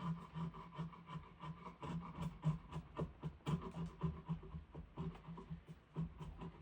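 Hand scraping or sanding on a diamond willow stick: quick repeated strokes, roughly two or three a second.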